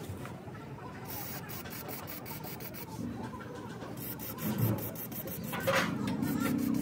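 Aerosol lubricant can spraying onto a truck's lift-axle pin and bush in many short, quick hisses, with a longer hiss about four seconds in and a knock near the end.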